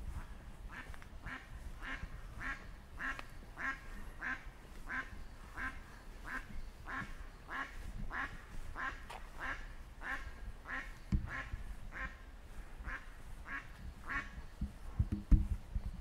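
An animal calling in a long, even series of short calls, about two a second, that stops about fourteen seconds in.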